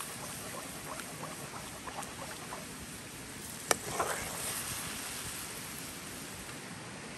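A metal ladle stirring a steaming sauce in a metal pan, with small scattered clicks and a steady hiss. About halfway through, the ladle knocks once sharply against the pan, followed by a brief swish as it is lifted out.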